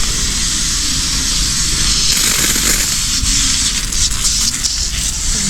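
Pressure washer spraying a steady jet of water onto a range hood's vent screen: a constant loud hiss.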